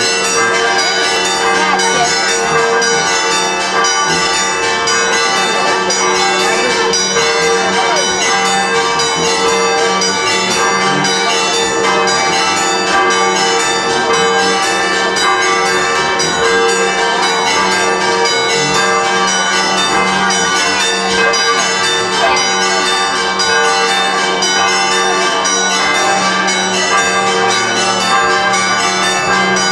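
Church bells ringing continuously in a steady festive peal.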